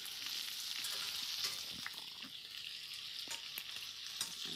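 Seared scallops sizzling in a hot frying pan, a steady faint hiss, with a few light clicks through it.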